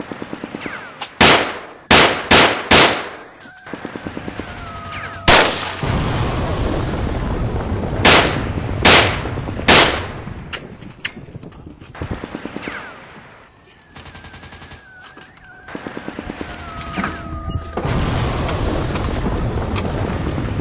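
Action-film gunfire sound effects: rapid automatic-weapon bursts with several very loud single shots, four close together in the first few seconds and three more about halfway through, and a few short whistling whines in between. The firing thins out briefly past the middle, then carries on as steady rapid fire near the end.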